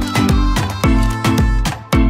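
Background music with a steady beat: deep bass notes about twice a second under sharp drum hits.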